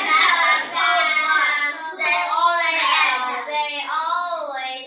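A class of young children reading an English sentence aloud in unison, in a drawn-out sing-song chant.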